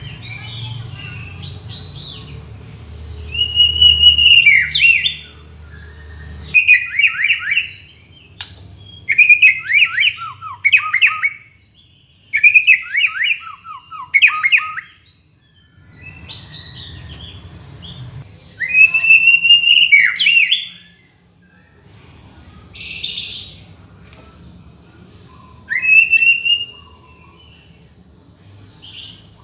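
White-rumped shama (murai batu) singing: a run of loud, varied whistled phrases with fast downward sweeps, each a second or two long and separated by short pauses.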